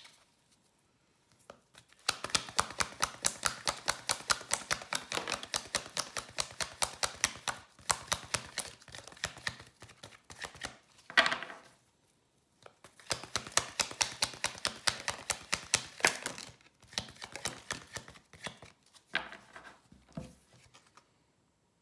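A deck of cards being shuffled by hand: a quick, even run of small card slaps, about five a second. The slaps pause near the middle with one louder slap, start again, and thin out toward the end.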